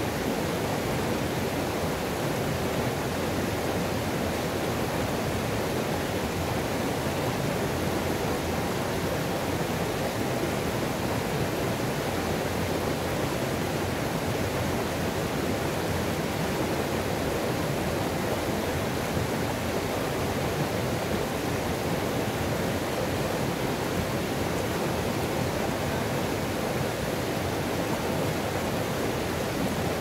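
Highland river rushing over a rocky ledge into a pool: a small waterfall's steady roar of white water, with no change throughout.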